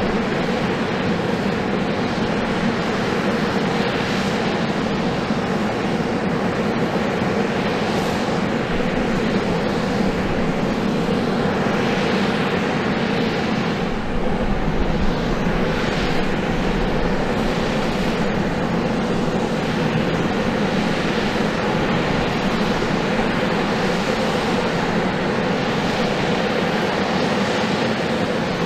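USAF CV-22 Osprey tiltrotor running steadily, an even turbine noise that holds level throughout.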